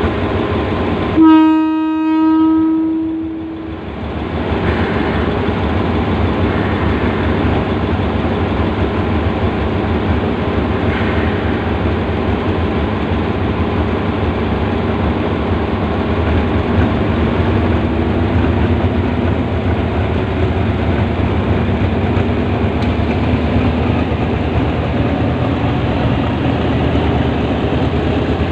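Diesel locomotive's air horn sounds one steady note for about two seconds, about a second in, then the locomotive's diesel engine runs steadily with track noise as the train rolls slowly past.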